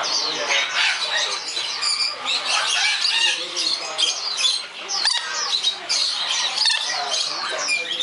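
Many caged parrots and cockatoos calling over one another: a dense, unbroken mass of short, high calls.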